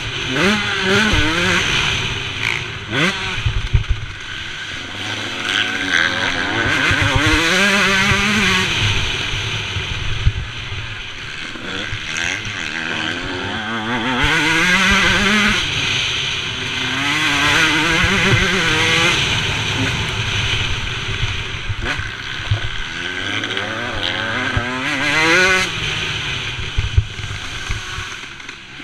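Motocross bike engine at hard throttle, its pitch climbing and dropping again and again as the rider shifts and rolls off for corners, with a few sharp knocks from the track.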